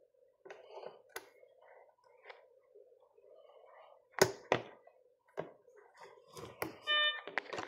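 A series of sharp clicks and knocks from equipment being handled while ECG leads are hooked up to a Mindray T5 patient monitor, over a faint steady hum. Near the end the monitor gives one short electronic beep.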